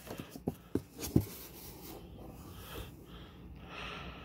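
Hands handling an old corrugated cardboard box and its cardboard inserts: a few light knocks and scrapes in the first second or so, then faint rubbing and scratching of cardboard.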